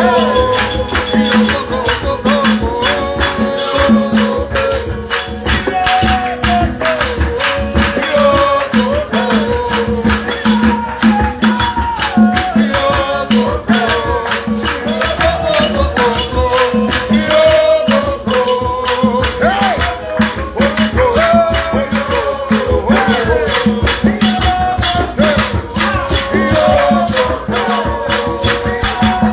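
Gospel worship music driven by a fast, steady rattle or shaker beat, with a melody running over it.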